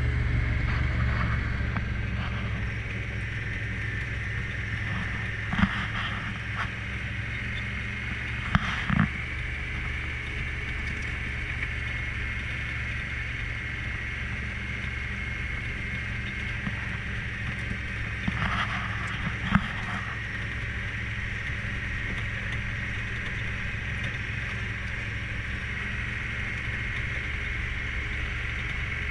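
Side-by-side UTV engine running steadily, with a constant high whine over its low hum and a few short knocks or rattles at scattered moments.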